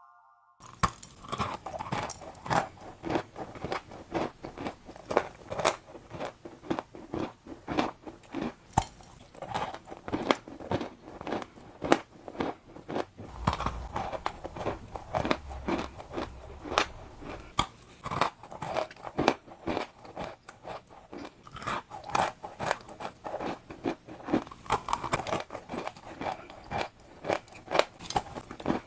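Crunchy balls being crunched: a dense run of sharp, crisp crunches and crackles, several a second and uneven in loudness, starting about half a second in.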